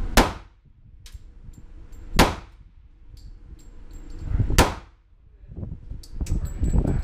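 Three pistol shots in .40 S&W, spaced about two seconds apart, each with a short echo off the walls of an indoor range.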